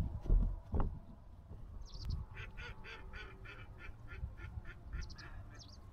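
Duck quacking in a quick, even run of about a dozen calls, a little over three a second, beginning about two seconds in. Two low thumps come in the first second.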